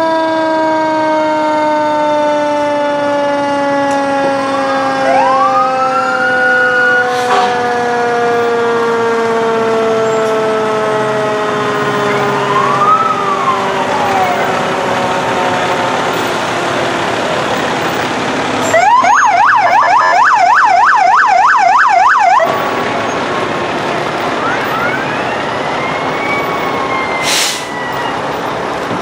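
Fire truck sirens in a slow-moving parade. One siren winds down in a long, slowly falling wail over the first half. Other sirens give short rising-and-falling chirps, and about two-thirds of the way in a fast warbling electronic yelp sounds loudest for about three seconds.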